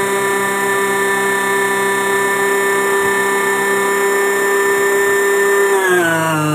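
Electric motor of a radio-controlled model fishing boat running with a steady high whine, its pitch falling near the end as it slows.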